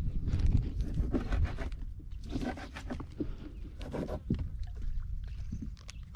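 Irregular scraping, rubbing and small knocks of handling noise on a wooden fishing boat, over a low steady rumble.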